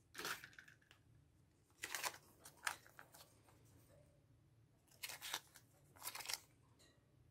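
Faint, brief crinkles of MRE plastic ration packets being handled, a few short rustles spread over the quiet.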